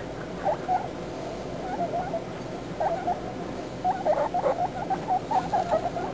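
Baby guinea pigs making short squeaking calls, a few at first, then in quick runs in the second half.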